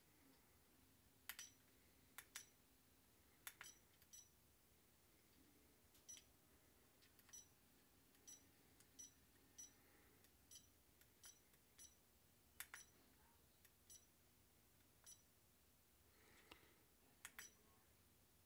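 Faint, short, high-pitched beeps from Fatshark Attitude V2 FPV goggles fitted with a True D receiver module, one for each press of the module's menu buttons, irregularly spaced, with a few sharper clicks among them.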